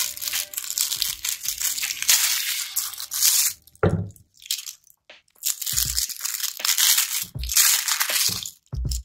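Clear plastic film wrapper crinkling as it is peeled off imitation crab sticks by hand, in two long stretches, with a few short low thuds in between and near the end.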